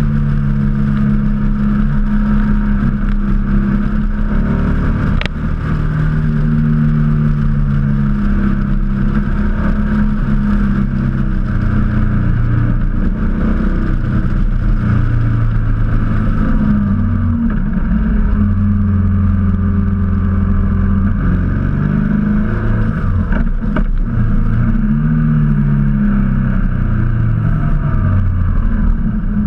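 Motorcycle engine heard from on the bike while riding, its pitch rising and falling again and again with throttle and gear changes through the bends, over steady wind and road noise.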